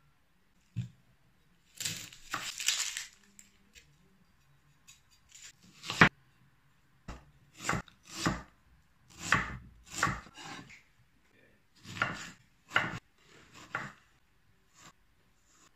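Chef's knife slicing red onion and lemon on a wooden cutting board: irregular knocks of the blade striking the board, with the sharpest knock about six seconds in.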